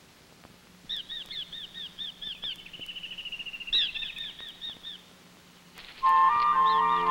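A songbird calling: a run of quick, high chirped notes with a fast trill in the middle, stopping about five seconds in. Soft music comes in near the end.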